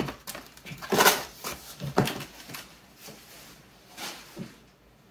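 Cardboard packaging and mailers being handled: irregular rustles and knocks, loudest about a second in, dying away toward the end.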